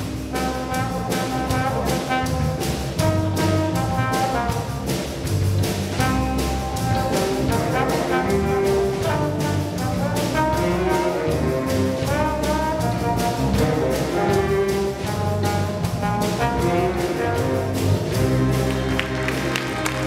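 School jazz band playing a tune with a steady drum beat, electric guitars and bass, with a trombone playing the lead line out front.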